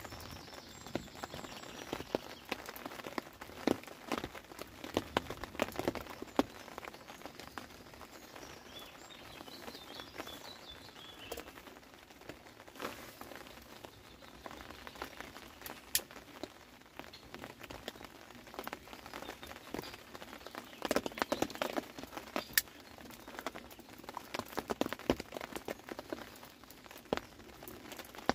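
Raindrops pattering on a fishing umbrella's canopy: irregular sharp taps over a soft hiss, coming thicker in spells about two-thirds of the way through.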